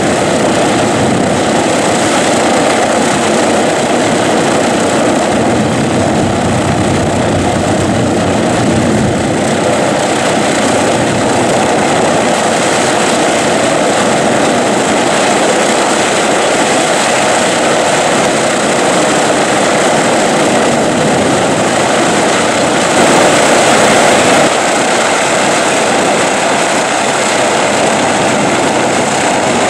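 Boeing B-29 Superfortress's Wright R-3350 radial engines running on the ground just after start-up, a loud steady drone with propeller noise. The noise swells briefly about 23 seconds in.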